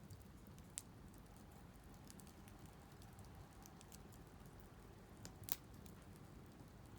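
Wood fire crackling faintly, with scattered sharp pops; the loudest comes about five and a half seconds in, another just under a second in.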